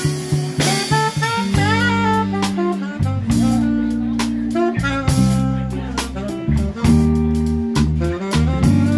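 Live jazz band playing: a saxophone carries a melody with scooped, bending notes over a sustained bass line and a drum kit keeping time.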